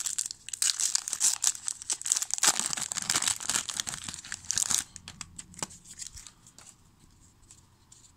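A trading-card pack's wrapper being torn open and crinkled for about five seconds, then a few light rustles and clicks as the handling eases off.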